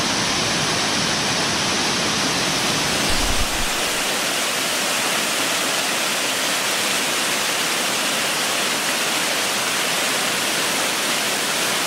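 Waterfall below a lake dam, water rushing down in a steady, even roar.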